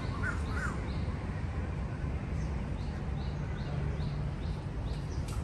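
Birds calling: a few harsh calls near the start, then a run of short high chirps, about three a second. A steady low rumble runs underneath.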